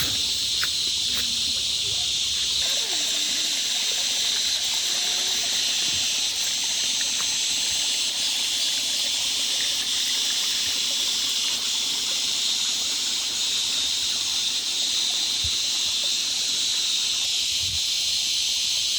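Steady outdoor nature ambience: an unbroken high-pitched hiss that holds level throughout, with a few faint, brief sounds beneath it.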